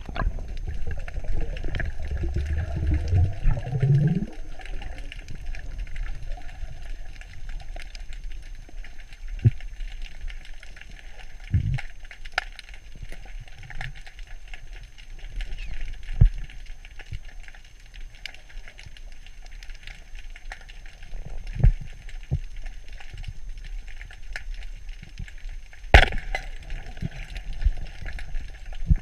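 Underwater sound through a GoPro housing: a low, muffled rumble with a gurgle that rises in pitch over the first few seconds, then scattered small clicks and knocks. Near the end a single sharp crack, the loudest sound, is the speargun firing its shaft.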